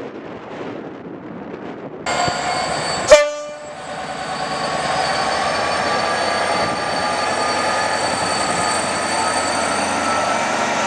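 A faint, distant rumble, then an EWS Class 66 diesel locomotive close by. It gives a very short, loud horn toot about three seconds in. It then keeps running past hauling freight wagons, its two-stroke V12 engine working with a steady, loud note and high ringing tones.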